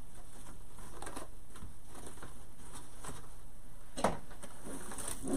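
Hands rustling and fiddling with ribbon loops on a grapevine wreath: faint scattered ticks and rustles over a steady background hiss, with one sharp click about four seconds in.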